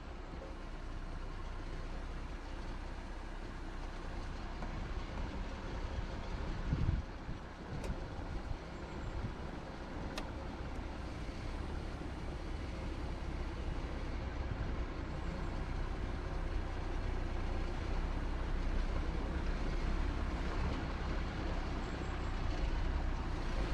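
Jeep Gladiator driving along an off-road trail: a steady low rumble of engine and tyres that slowly grows louder, with a few short knocks about a third of the way in.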